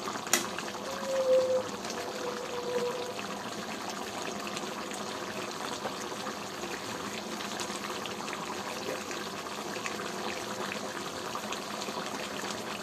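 Chicken curry gravy simmering in a kadai over a gas flame, a steady bubbling and popping. A single sharp click just after the start.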